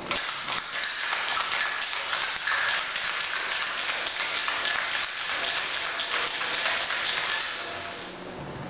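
Ice rattling inside a metal cocktail shaker, shaken hard and fast without a break, easing off near the end. It is a drink with egg white being shaken over ice to chill it and whip it frothy.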